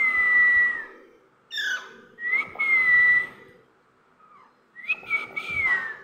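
Alexandrine parakeet giving three drawn-out, whistle-like calls of about a second each, with a shorter call between the first two.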